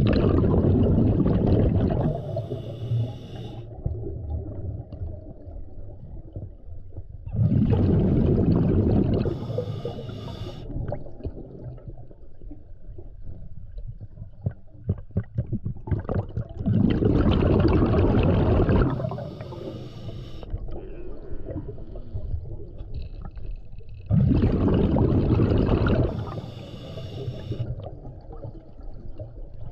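Scuba diver breathing through a regulator underwater. Each breath is a gush of exhaled bubbles followed by a shorter hiss of inhalation, four breaths at roughly seven to eight second intervals.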